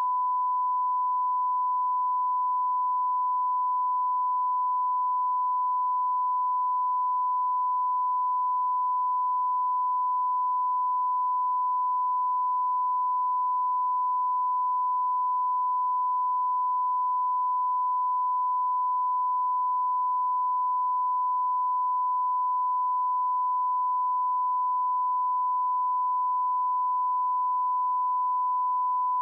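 Broadcast line-up test tone: the standard 1 kHz reference tone that runs with colour bars, one steady unbroken beep at a single pitch.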